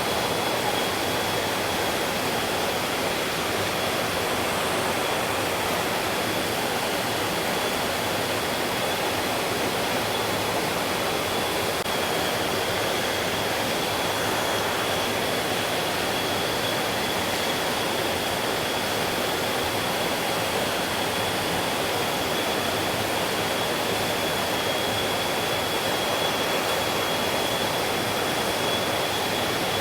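Mountain stream water rushing steadily, an even unbroken roar with a thin steady high tone running through it.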